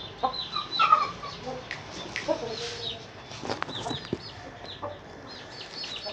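Chickens clucking, with many short, high calls that fall in pitch and a few clicks.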